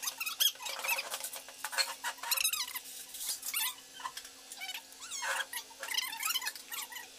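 A small animal's high-pitched squeaky whines and squeaks, in short wavering calls repeated throughout.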